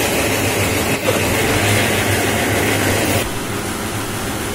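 Twin-screw snack extruder production line running: a loud, steady machine noise with a constant low hum and a hiss over it, dropping in level about three seconds in.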